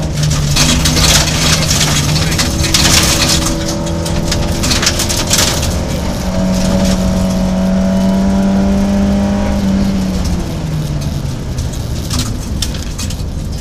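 Rally car engine running hard, heard from inside the cabin. Its note steps up about six seconds in and drops back near ten seconds. Through the first half, gravel hisses and rattles under the car as it drives the loose forest road.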